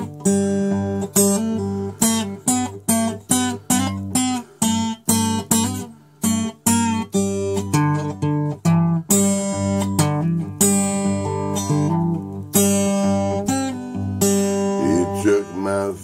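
Acoustic guitar strummed solo, about two strums a second, chords ringing and changing as it goes.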